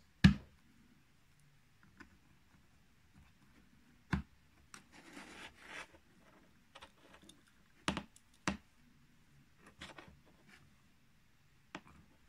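Handling noise from a DC motor controller circuit board and its wiring: scattered small clicks and light knocks as crimp connectors and a potentiometer are handled, the sharpest click just after the start, with a brief rustle about five seconds in.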